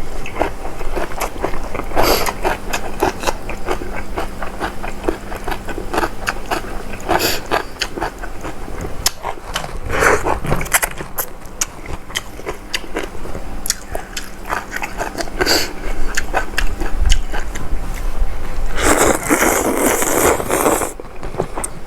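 Close-up eating sounds: a person chewing and crunching mouthfuls of spicy seafood salad with shrimp and squid, many small wet clicks and crackles. About 19 seconds in, a louder rustling, hissing noise lasts about two seconds.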